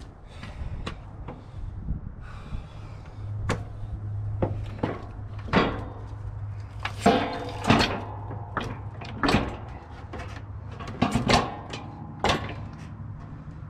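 Metal snow plow push frame being shifted on a wooden skid against the plow blade: a string of irregular knocks and clanks, the loudest about seven and eight seconds in ringing briefly.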